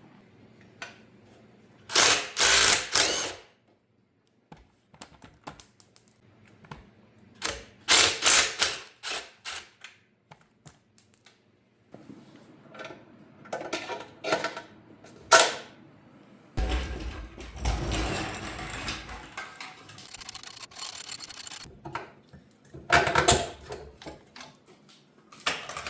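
Hand tools working on a bare motorcycle-type frame as its small engine is removed: several bursts of rapid metallic clicking and clattering. About two-thirds of the way through there is a heavier, low thud and scraping of metal.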